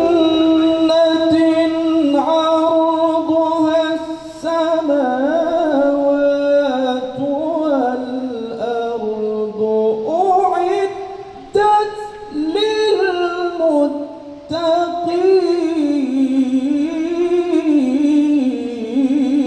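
A man reciting the Quran in melodic tilawah style. He draws out long phrases that rise and fall with wavering ornaments, with short breaks for breath between them, and the voice comes through a microphone.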